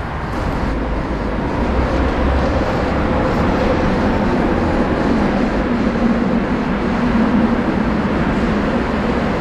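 Loud, steady rumble of vehicle traffic, growing louder about a second in, with a low engine hum through the second half.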